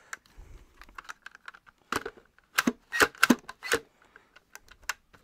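Irregular sharp plastic clicks and knocks from the parts of a Dyson V10 Animal cordless stick vacuum being worked by hand, a part that has been sticking. A run of louder knocks comes about two to four seconds in, with fainter ticks either side; the motor is not running.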